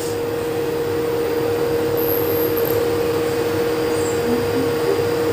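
Skyline induction cooktop running with an empty flat pan heating on it: a steady whirring from its cooling fan with a steady hum-like whine.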